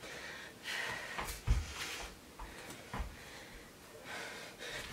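Hard breathing from exertion during kneeling-to-squat jumps, with dull thuds about a second and a half in and again about three seconds in as bare feet and knees land on a yoga mat.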